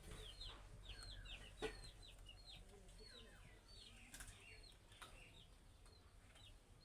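Budgerigars chirping faintly: a quick run of short, high, curling chirps, with one sharp click about one and a half seconds in.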